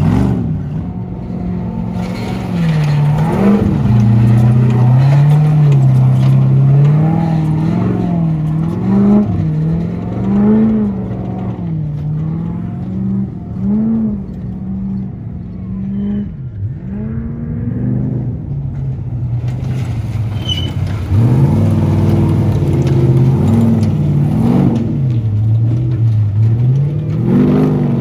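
Off-road race buggy engines revving up and down as the cars climb over rough rocky ground, the pitch rising and falling every second or two with the throttle. The sound softens for a few seconds past the middle, then comes back louder from another car.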